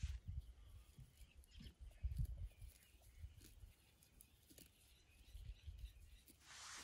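Sheep grazing close by, quietly cropping and chewing grass, with soft irregular low gusts and a few faint bird chirps.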